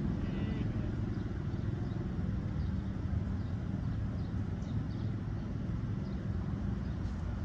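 Low, steady rumble of street traffic.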